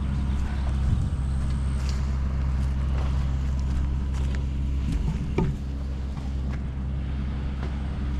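An engine idling steadily with a low, even hum, with a few faint knocks over it.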